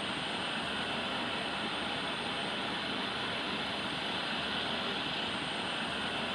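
Jet engines of an airliner at taxi power, a steady rushing noise that holds level throughout.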